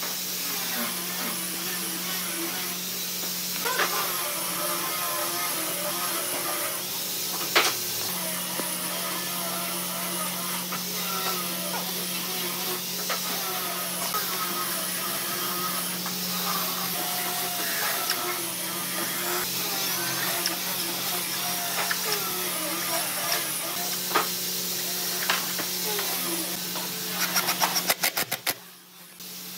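Steady workshop hum with a few sharp knocks of wood being handled. Near the end a Hitachi cordless impact driver drives a screw into a pine plank in a quick rattling burst.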